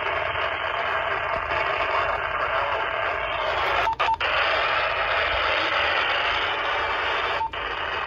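Motorola handheld two-way radio hissing static from its speaker. The hiss cuts out briefly twice about four seconds in and once near the end, each time with a short beep.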